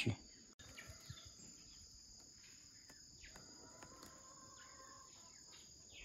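Near silence: a faint, steady high-pitched hiss or whine with a few soft ticks and rustles.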